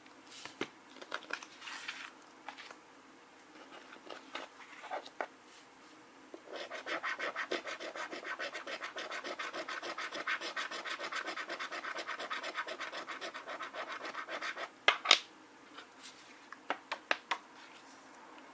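A coin scratching the coating off paper lottery scratch tickets. A few short scrapes come first, then about eight seconds of fast, even back-and-forth scratching, then two sharp louder strokes and a few more short scrapes near the end.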